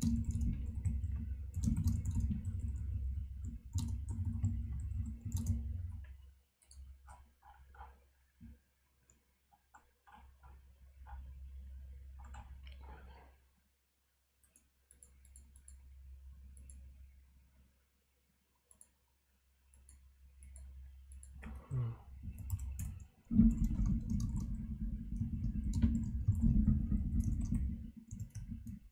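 Typing on a computer keyboard in two dense bursts, one at the start and another from about two-thirds of the way in, with scattered single key and mouse clicks in the quieter stretch between them.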